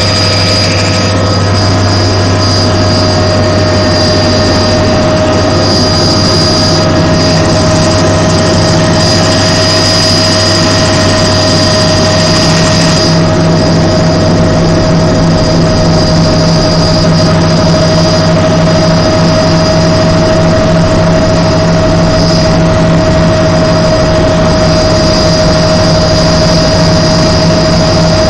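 Helicopter turbine and rotor noise heard from inside the cabin: a loud, steady drone with a constant high turbine whine, running on through lift-off and into flight.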